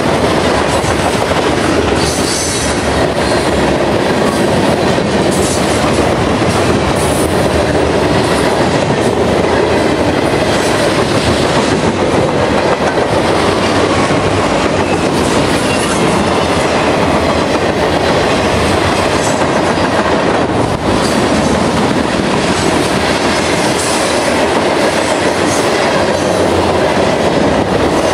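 Freight cars of a CSX mixed manifest train rolling past at close range: a steady, loud rumble and clatter of steel wheels on the rails.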